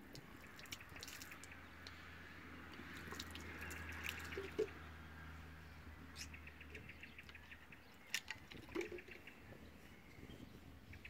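Faint water trickling and dripping as chrome trim strips are rinsed with water from a bottle, with scattered small clicks.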